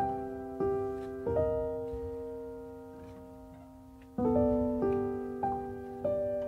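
Background piano music: a few notes struck and left to ring, a long held pause in the middle, then a new phrase of notes starting about four seconds in.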